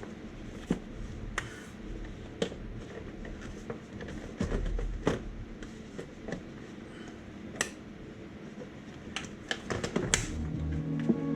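Scattered sharp clicks and light knocks of hand tools and metal parts being handled during an engine teardown, with a quick run of clicks near the end.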